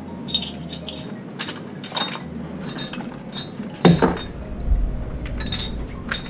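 Metal parts and tools clinking and knocking during work on a commercial faucet's vacuum breaker, a string of light clinks with one louder knock about four seconds in.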